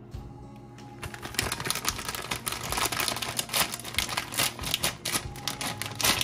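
Plastic instant-noodle packet crinkling and rustling as it is handled and opened, a dense run of sharp crackles that starts about a second in.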